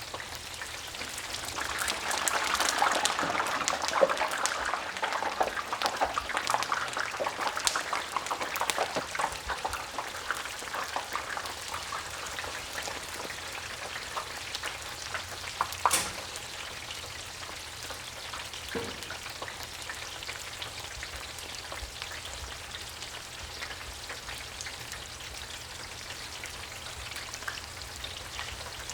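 French fries deep-frying in a basket submerged in hot oil: dense bubbling and crackling with popping, most vigorous over the first several seconds, then easing to a quieter steady crackle, with one sharp pop about halfway through.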